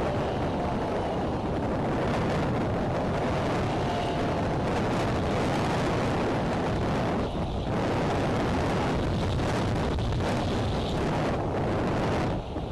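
Strong, gusty wind buffeting the nest camera's microphone: a loud, steady rumbling rush that dips briefly about seven and a half seconds in and again near the end.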